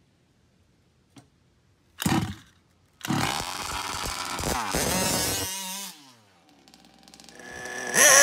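Two-stroke engine of a large-scale RC buggy revving. A short blip comes about two seconds in, then about three seconds of running and revving whose pitch falls away, and a rising rev near the end.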